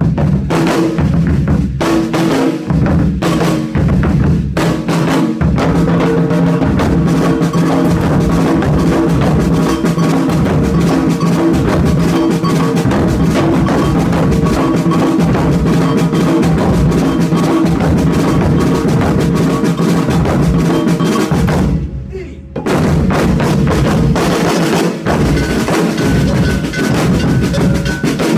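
Percussion ensemble drumming a steady, dense groove of bass and snare-type drums, coming in right on a count-in. The drums drop back briefly about 22 seconds in, then return at full strength.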